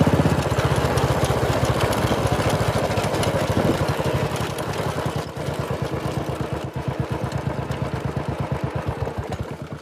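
Royal Enfield Classic 350's single-cylinder engine through a Red Rooster aftermarket exhaust, running at low revs with an even thumping beat that grows gradually quieter.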